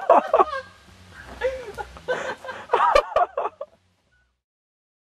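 Excited voices shouting and laughing, with a sharp crack or two among them, cutting off to silence about three-quarters of the way through.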